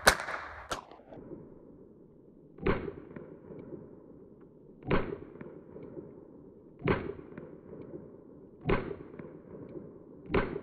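Semi-automatic pistol fired single shots at a slow, steady pace, about one every two seconds, two in quick succession at the start, each crack followed by a short fading echo.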